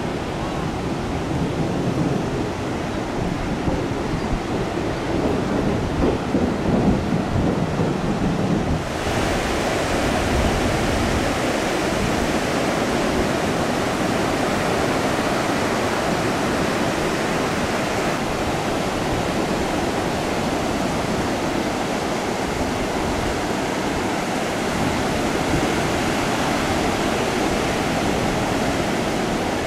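Small ocean waves breaking and washing up the beach, a steady rush of surf. About nine seconds in, the sound abruptly turns brighter and hissier.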